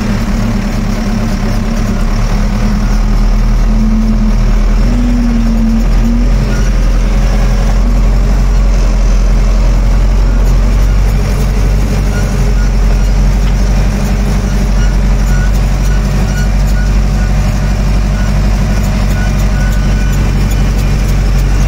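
Ursus 1014 tractor's turbo diesel engine running steadily, heard loud and close from the driver's seat. Its pitch lifts briefly about five seconds in.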